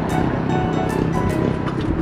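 Background music playing over a low, steady rumble.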